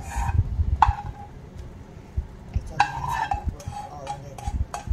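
Metal lid clanking and scraping against a frying pan as it is set over the pan, with a few sharp ringing clanks and then a run of small clicks near the end.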